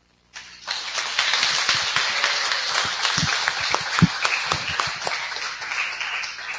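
A group of people applauding, starting about half a second in and tapering off near the end.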